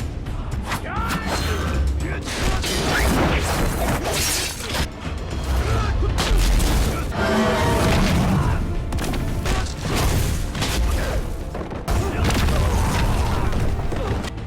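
Martial-arts film fight soundtrack: a dense run of hits, crashes and metallic clatter over dramatic music, with brief shouts.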